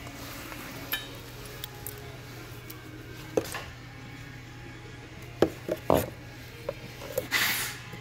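Scattered knocks and clunks as a Nilfisk-Advance pump motor is handled and turned over, with a short scraping rustle near the end, over a steady low hum.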